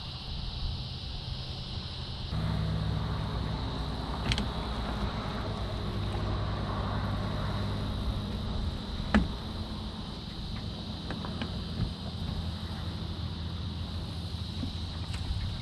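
Electric trolling motor humming low and steady as it pushes a jon boat, with a steady high insect drone and a few sharp knocks.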